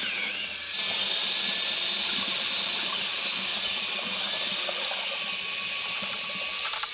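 Hand drill spinning a Vortex Power Mixer paddle through wet concrete in a five-gallon bucket: a steady, splashy churning wash.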